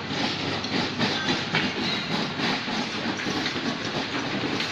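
Shopping trolley with a child's plastic car seat being pushed over a tiled floor, its wheels and wire basket rattling in a continuous clatter.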